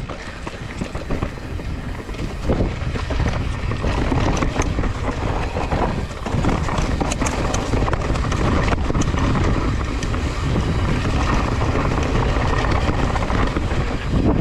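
Wind buffeting the microphone and mountain bike tyres rolling fast over dry, loose dirt on a descent, with scattered clicks and rattles from the bike.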